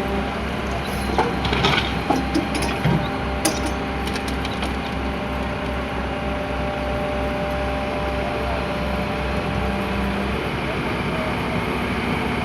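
JCB excavator's diesel engine running steadily with a low, even throb, with a few sharp clinks and knocks in the first few seconds. The throb drops away about ten seconds in while the engine keeps running.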